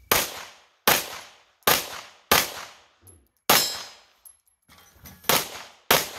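Seven pistol shots fired at a target course, each with a short decaying echo: four about three-quarters of a second apart, then a gap of about a second, one shot, a pause of nearly two seconds, and two quick final shots.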